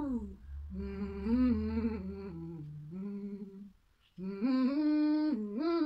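A girl humming vocal warm-up exercises. A falling slide comes first, then two held hummed phrases that step up and down in pitch, with a short break between them about four seconds in.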